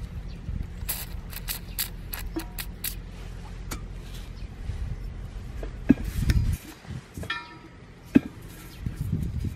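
Scattered clicks and knocks of gloved hands working a rubber snap-in valve stem into a steel wheel rim, with two sharper knocks about six and eight seconds in. A low rumble runs underneath and stops about six and a half seconds in.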